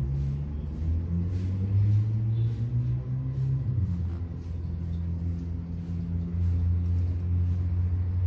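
A motor engine running steadily with a low hum, its pitch shifting about a second in and again near four seconds in.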